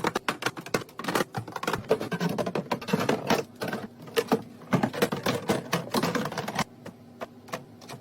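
Rapid clicks, taps and knocks of food containers and packaging being handled and set down while a fridge is restocked, thinning to a few scattered clicks near the end.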